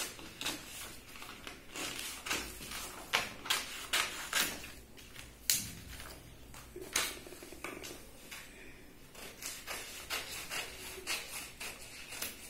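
Scissors snipping through folded paper, a run of quick cuts, with the paper rustling as it is moved and turned between cuts.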